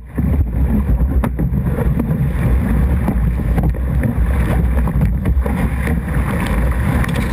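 Breaking surf wave crashing over a rowed surf boat: white water rushing and churning, with heavy low buffeting on the microphone.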